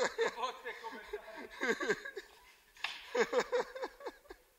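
A person laughing in three short bouts of quickly repeated, pitched 'ha' sounds.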